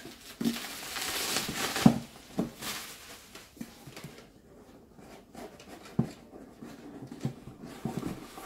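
Bubble wrap and a cardboard box being handled: a rustle of plastic for the first two seconds, then scattered light taps and knocks of the box, the sharpest about two seconds in.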